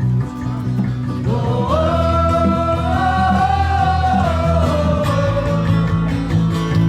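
Live acoustic band music: guitar with singing, and a long held note through the middle.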